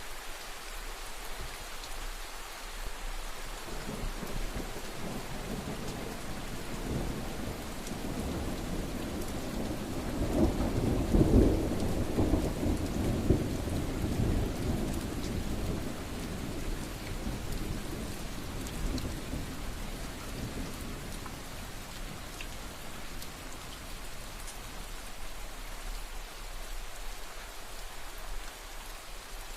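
Steady rain falling, with a long roll of thunder that builds from about four seconds in, is loudest around eleven to fourteen seconds, and dies away by about twenty seconds.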